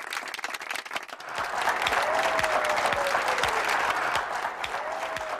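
Studio audience applauding, the clapping swelling to full applause about a second in, with a thin falling tone heard twice over it.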